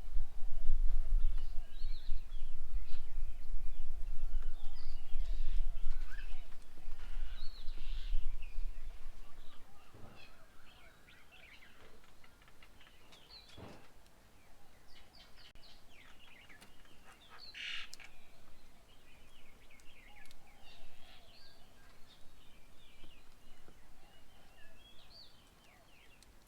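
Many birds chirping and calling, with short overlapping notes and one louder call about seventeen seconds in. A low rumble lies under the first nine seconds or so, then fades.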